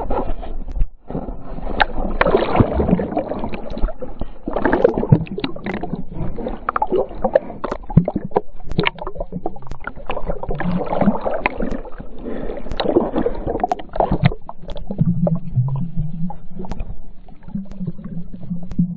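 Choppy seawater sloshing and splashing around a camera held at the waterline beside a kayak, with irregular splashes and knocks. The sound turns to muffled underwater gurgling when the camera goes under.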